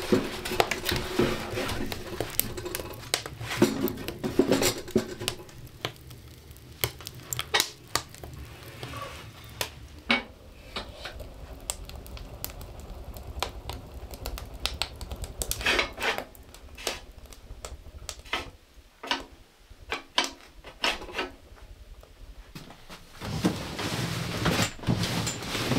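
Objects being handled and set down: irregular clinks and knocks, with stretches of rustling in the first few seconds and again near the end.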